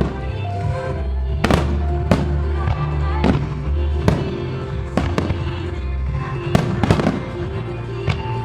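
Fireworks shells bursting in quick, irregular succession, about a dozen sharp bangs, over recorded song music playing throughout.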